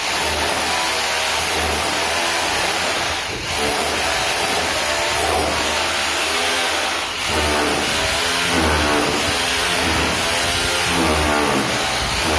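A '226' hammer drill hammering a bit into a brick wall with a loud, continuous rattle. Its motor pitch wavers under load, and it eases off briefly about 3.5 and 7 seconds in before biting again.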